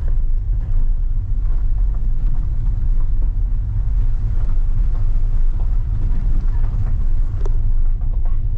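In-cabin rumble of a compact SUV driving slowly over an unpaved dirt track: a steady low drone of engine and tyres on the rough surface, with one sharp knock from a bump near the end.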